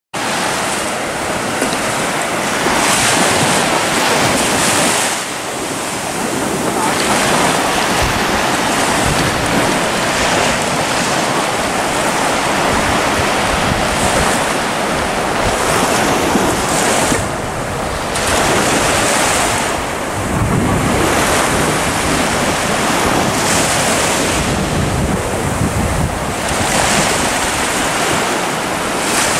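Sea surf breaking on a beach, a continuous wash of water that swells and eases every few seconds, with wind buffeting the microphone.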